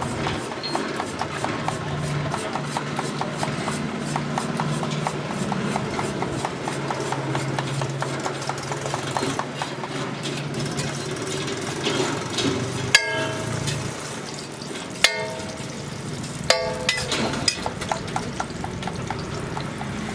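Metal cooking utensils clinking fast and evenly for about ten seconds, then three sharp ringing metal clangs a second or two apart.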